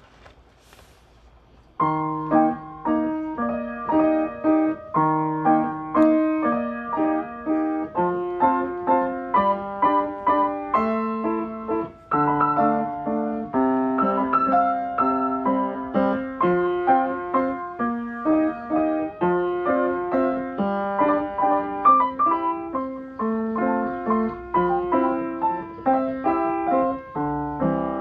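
Piano music, a steady run of notes played with both hands, starting about two seconds in after a couple of faint clicks.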